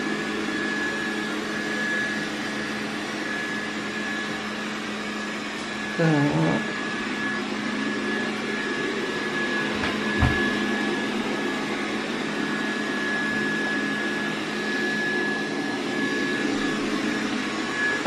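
Xiaomi S10+ robot vacuum running steadily: a constant whir with a thin high whine over a low hum. A single knock about ten seconds in.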